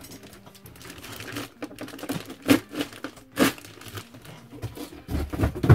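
Clear plastic bag crinkling and rustling as a boxed toy gauntlet is lifted out and handled in it, with sharper crackles about two and a half and three and a half seconds in, and a dull knock near the end.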